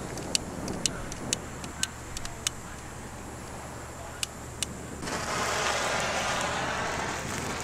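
Titanium 500-mesh powder catching fire about five seconds in, then burning in a steady rushing hiss. Before that there is a series of sharp ticks, about two a second.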